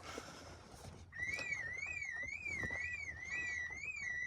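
Car alarm sound effect from a video filter, set off by movement: a warbling tone that swings up and down in pitch about twice a second, broken by short steady beeps, starting about a second in.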